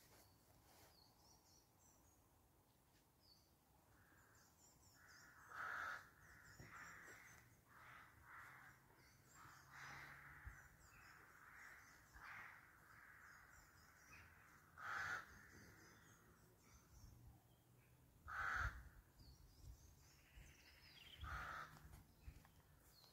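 Birds calling outdoors: a few louder calls about half a second long, spread out, over faint twittering of small birds.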